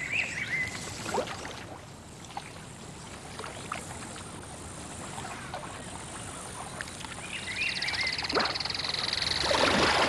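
Anaconda splashing in water: quiet sloshing and small drips with a few brief chirping calls, then a swelling rush of splashing water near the end as the snake surges.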